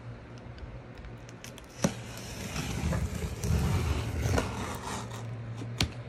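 Pocket knife slitting the packing tape on a cardboard box, with the cardboard scraping and crackling under the hand. A sharp click about two seconds in and another near the end.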